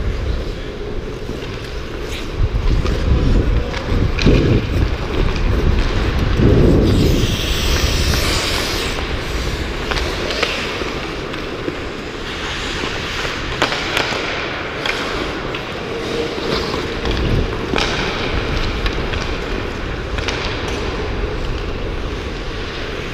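Ice skate blades gliding and scraping on a rink, with a louder, longer scrape about seven seconds in, under a constant rumble of wind over the microphone. Sharp clicks of hockey sticks and puck sound now and then.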